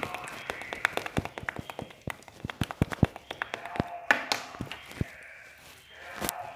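A rapid, irregular series of sharp clicks and taps, thinning out near the end.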